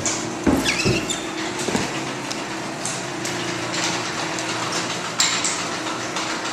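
LiftMaster 3280 belt-drive garage door opener running with a steady hum as it moves the door, the door's rollers clattering and knocking in the track, with the loudest knocks about half a second in and again just after five seconds.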